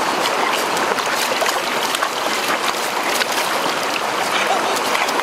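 Stream water running and splashing over rocks, a steady rushing sound, with scattered short clicks on top.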